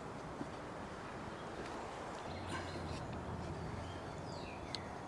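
Quiet outdoor background with faint bird chirps near the end, a few light clicks, and a faint low hum through the middle.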